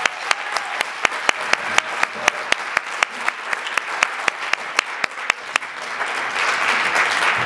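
Audience applauding after a live band performance. One pair of hands close by claps loudly at about four claps a second over the rest, and the applause swells near the end.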